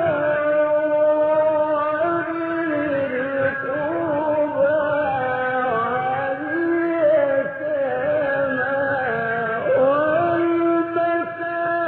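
A man's voice reciting the Quran in the melodic mujawwad style, holding long, ornamented notes that waver and bend in pitch with hardly a break.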